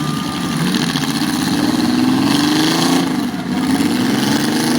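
Several demolition derby car engines revving at once, their pitch rising and falling as the cars accelerate and back off.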